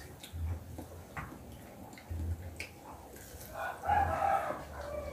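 A rooster crowing once, about three and a half seconds in, a single call lasting about a second.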